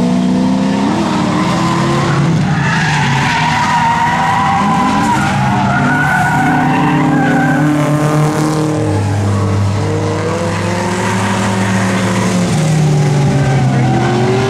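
Honda Civic drift car's engine revving up and down as the car slides through the corners, with its tyres skidding and squealing on the asphalt.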